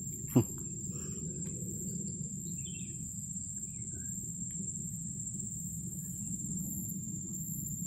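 Outdoor ambience: a steady high-pitched insect drone with scattered short bird chirps over a low steady background rumble. A brief thump with a quick falling sweep comes about half a second in and is the loudest sound.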